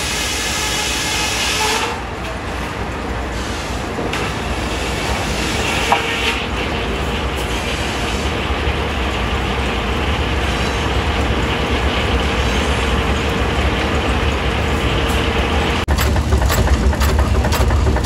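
Old sawmill machinery running with a steady mechanical noise and, from about six seconds in, a steady whine. Near the end it gives way to a Monitor stationary gas engine running with a low rumble and a quick string of sharp clicks.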